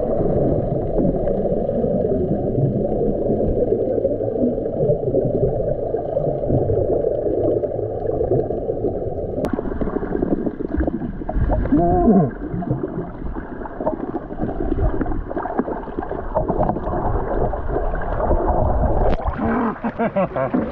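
Muffled underwater noise picked up by a waterproof action camera below the surface: a dull, steady rush of water with bubbling as a snorkeler swims. The sound changes abruptly about nine seconds in, and near the end it turns brighter as the camera comes up through the surface.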